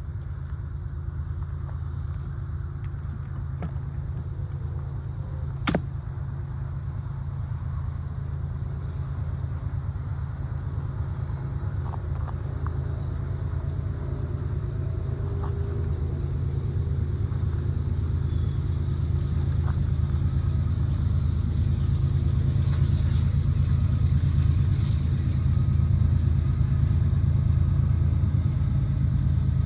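Low, steady rumble of an approaching diesel locomotive, growing gradually louder; a single sharp click about six seconds in.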